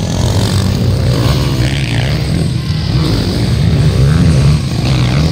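Motocross dirt bike engine revving up and down as it rides past on the track, its pitch rising and falling with the throttle and loudest about four seconds in.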